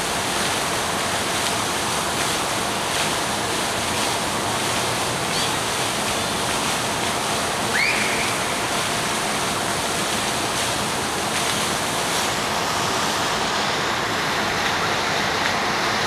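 Steady rushing outdoor noise at a constant level, with one brief rising chirp about halfway through.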